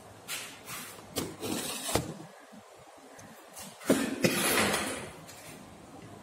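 A few light knocks and scrapes in the first two seconds, then a louder, longer scratchy noise starting with a sharp knock about four seconds in.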